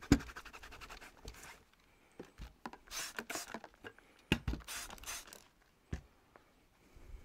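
Handling and cleaning of a Dyson V10 Animal stick vacuum's parts: a sharp knock, a run of fine rapid scratches, two scratchy scrubbing bursts and a couple more sharp knocks.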